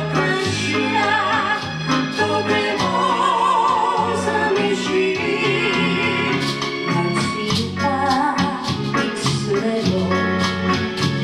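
A live trio playing a song: a singing voice over strummed acoustic and electric guitars, with a line of low bass notes.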